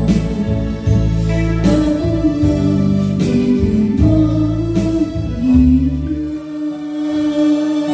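Music: a song with a voice singing over a backing track with bass and drums, holding one long note near the end.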